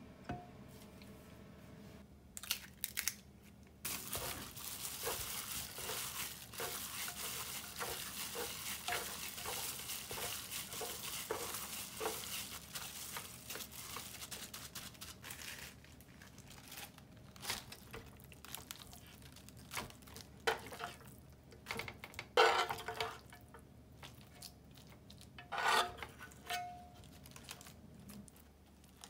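A hand in a plastic glove kneads a raw ground pork, onion and breadcrumb mixture in a ceramic pan: wet squishing with rhythmic strokes and the crinkle of the glove, for about ten seconds starting a few seconds in. After that come scattered knocks and scrapes in the pan as the mixture is handled and spread with a metal spoon, with the loudest knocks about two-thirds of the way through.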